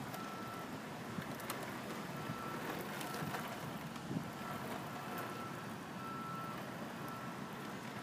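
Small electric tracked robot working its tread and pivot motors: a faint high motor whine that comes and goes in short, uneven spells, with a few sharp clicks, over a steady hiss.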